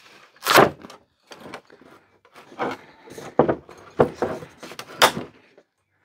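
Clunks and scraping as plastic and metal parts of a split-system air conditioner's indoor unit are worked free by hand: a string of short, sharp knocks, the loudest about half a second in and about five seconds in.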